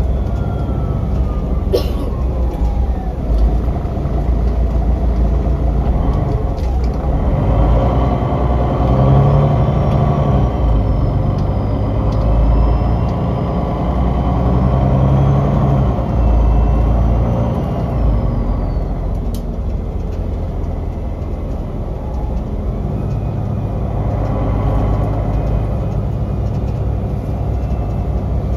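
Cabin sound of a 2005 MAN NL263 Lion's City city bus under way: its MAN D2866 straight-six diesel engine and Voith Diwa automatic gearbox run steadily, mixed with road noise. The engine note grows louder through the middle as the bus pulls away and gathers speed.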